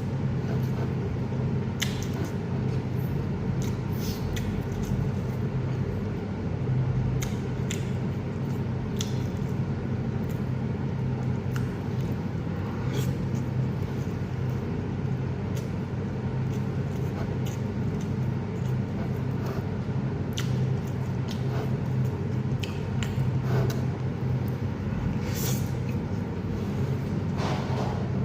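Someone eating: chewing and mouth sounds with scattered short clicks, over a steady low hum.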